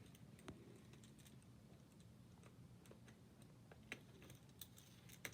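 Near silence with a few faint, sharp clicks of plastic magnetic building tiles snapping into place, more of them near the end.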